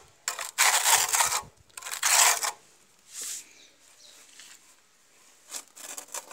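Steel trowel scraping and scooping tile mortar: two long scrapes in the first two seconds or so, then a few short, quieter scrapes near the end.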